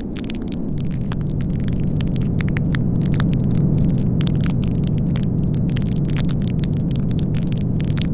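Blizzard ambience: a steady low roar of storm wind with dense crackling over it.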